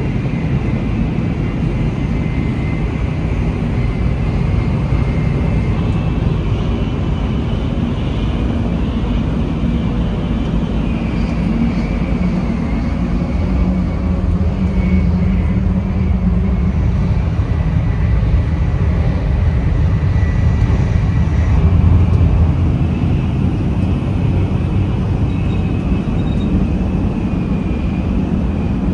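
Shinkansen bullet train running at speed, heard from inside the car's vestibule and washroom: a steady, loud low rumble of running noise that swells a little past the middle, with faint thin whines coming and going above it.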